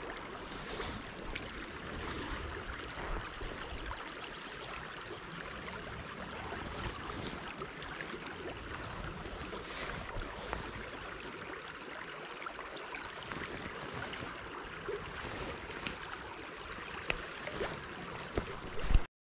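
Steady outdoor river ambience: water flowing and lapping with a little wind, over small rustles and clicks of gloved hands handling fishing line. A sharp knock near the end is the loudest moment.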